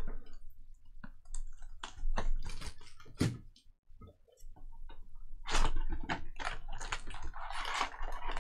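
A cardboard trading-card hobby box being handled: taps and rustling, a thud about three seconds in as the box is set down, then from about five and a half seconds a run of crinkling and scraping as the box flap is opened and foil-wrapped packs are slid out.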